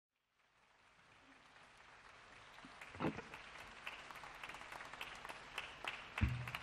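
Audience noise and scattered applause fading in from silence, with single claps standing out, and two low thumps, about three seconds in and just before the end.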